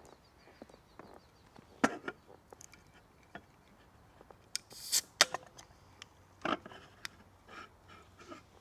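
Handling sounds: scattered sharp knocks and clicks, with a short high scraping rush about five seconds in.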